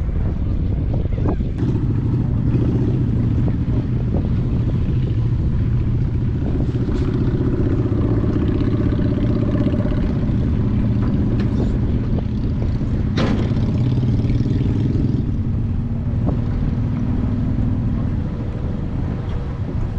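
A motor engine running close by, strongest through the middle and easing off near the end, over wind on the microphone. A sharp knock comes about 13 seconds in.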